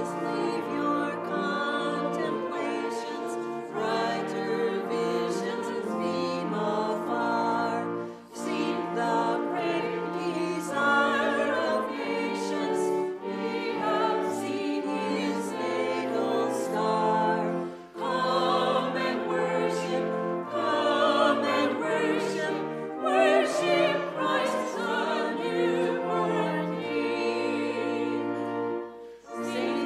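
Choral music with orchestral accompaniment: voices sing in long held chords over moving bass notes, with brief breaks between phrases about every ten seconds.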